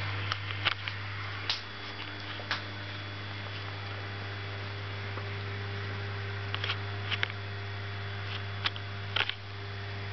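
Steady low electrical hum of running aquarium equipment, with several sharp clicks scattered through it.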